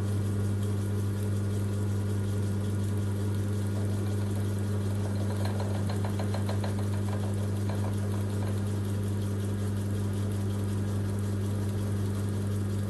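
Sherline micro lathe running steadily, its motor giving a constant hum, while the cutting tool turns down a copper soldering-iron tip. A stretch of fine, rapid ticking about five to seven seconds in is the tool cutting the copper.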